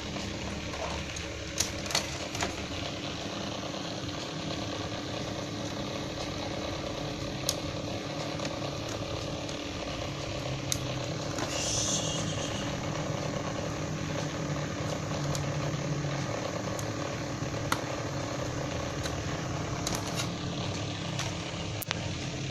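Light clicks and taps from a laptop's plastic casing and parts being handled, a few at a time. Under them runs a steady engine-like hum.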